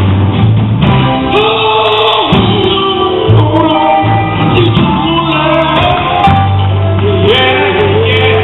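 Live gospel music: male voices singing long, held notes that bend in pitch, over a band with a steady bass line.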